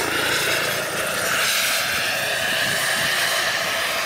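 Radio-controlled scale Bell JetRanger model helicopter flying low, its drive and rotors running steadily with a high whine whose pitch lifts slightly about one and a half seconds in.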